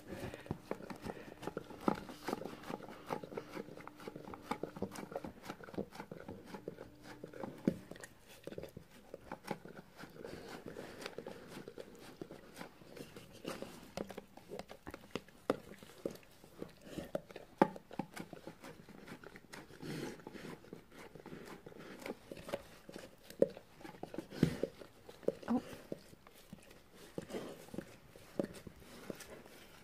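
Golden retriever licking peanut butter out of a plastic tub: a string of irregular wet smacks and small clicks.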